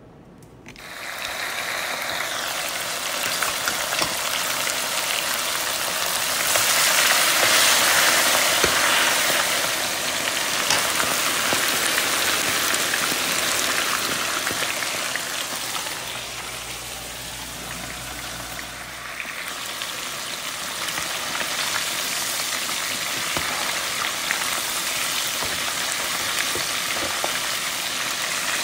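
Chicken wings deep-frying in a pot of very hot oil: a loud, dense sizzle that starts about a second in as the wings go in. It swells, eases a little past the middle, then builds again.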